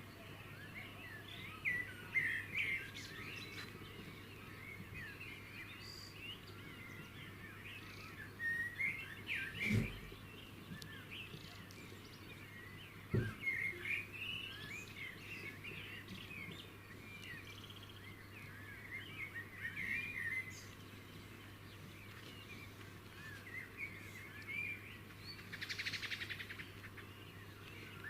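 Many small birds chirping and twittering continuously, with a fast buzzy trill near the end. Two short low thumps sound about ten and thirteen seconds in.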